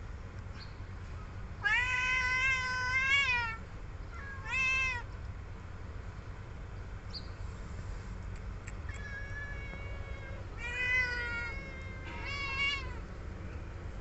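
Cats meowing for food: about five meows, the first long and drawn out, the rest shorter.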